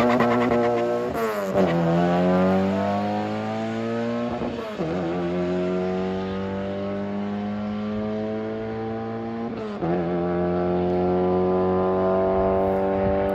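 Honda Civic sedan's four-cylinder engine accelerating down a drag strip, its note climbing through the gears with upshifts about one and a half, four and a half, and ten seconds in.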